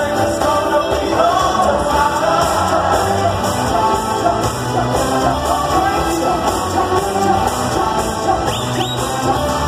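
Amplified live concert music with a singer over the band, echoing in an arena.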